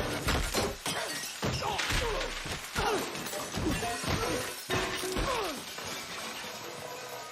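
Film sound effects: a rapid run of crashes, smashes and thuds, with short sounds sliding down in pitch between them, as objects and bodies hit at once, tailing off after about five seconds.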